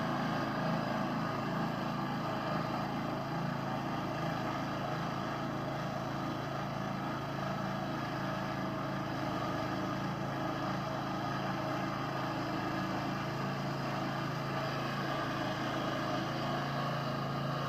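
Small homemade swingblade sawmill's motor running steadily under heavy load while the saw cuts fully seasoned yellow box hardwood, worked at the limit of its power with an unsharpened blade. The level sags slightly through the middle of the cut.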